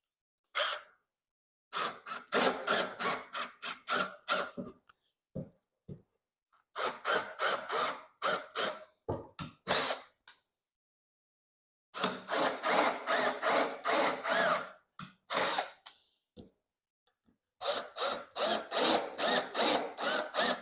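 Power drill driving screws with washers into wood, in four spells of quick trigger pulses with a high motor whine running through them, and short pauses between.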